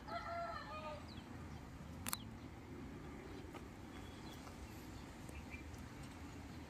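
Faint outdoor background hiss with small birds giving short high chirps now and then. A brief run of lower, pitched calls comes at the start, and a single sharp click about two seconds in.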